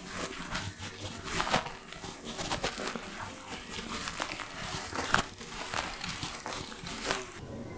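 Footsteps and rustling from walking on a dirt and grass path, heard as irregular clicks and scuffs. A faint steady high whine runs beneath and stops near the end.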